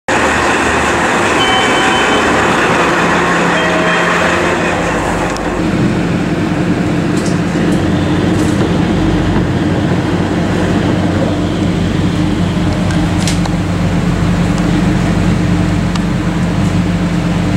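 KiHa 40 diesel railcar's original DMF15HSA six-cylinder diesel engine, heard from inside the car as a steady low drone that sets in about five seconds in, after a stretch of broad noise.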